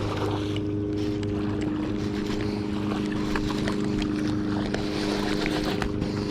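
A steady motor hum with several even tones, unchanging throughout, with a few faint scattered clicks over it.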